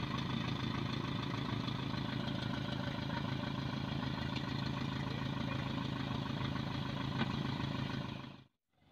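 An older SUV's engine idles steadily with a low, even hum. The sound cuts off abruptly near the end.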